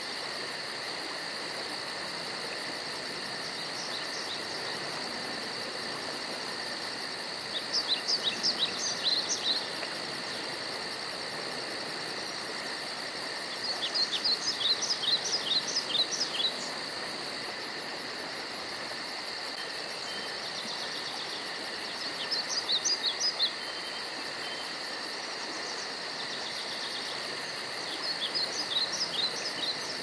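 Insects trilling in a steady, high, unbroken drone. A songbird sings four short bursts of rapid chirping notes over it, each about two seconds long.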